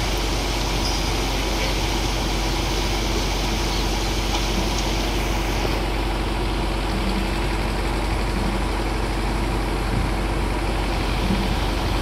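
Heavy diesel engine running steadily at an even pitch.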